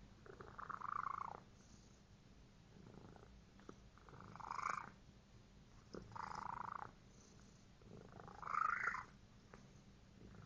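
A pet cat making a run of odd, repeated noises, each about a second long and coming roughly every two seconds; the loudest is near the end.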